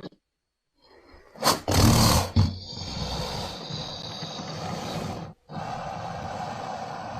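Made-up Parasuchus creature sound effect: a loud roar about a second and a half in, then a long, quieter drawn-out growl. The growl cuts off abruptly around five seconds and starts again.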